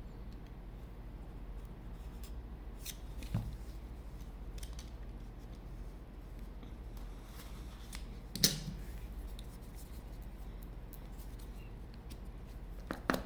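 Cardboard gift-box packaging being carefully worked open by hand: quiet scraping and handling noises with a few light clicks and one sharper click about halfway through, over a low steady hum.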